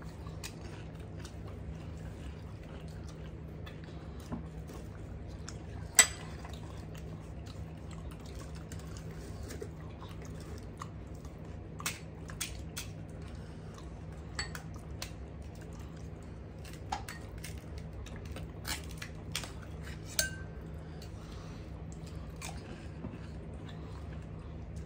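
Scattered small clicks and crackles of crisp gol gappa puris being cracked open and filled, with light taps of fingers and food on a steel plate and bowls, over a steady low hum. One sharp click about six seconds in is the loudest, and the clicks come more often in the second half.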